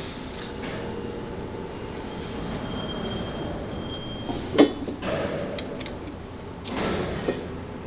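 Steel plate parts being handled with a lever-operated lifting magnet over a steady factory rumble: one sharp metal clank about halfway through as the hanging part is set down on steel plate, then a rougher clatter and knock near the end as the magnet's lever is worked.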